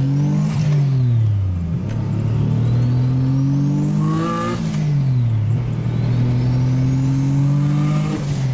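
Single-turbo VQ35HR 3.5-litre V6 in a Nissan 240SX accelerating hard: the revs climb steadily and drop back three times as the driver shifts up through the T56 Magnum manual gearbox. A faint high whine rises with each pull.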